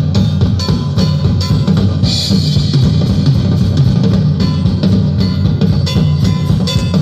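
Live recording of a jazz swing band playing, with the drum kit up front: steady bass drum and snare strokes, and a cymbal wash about two seconds in.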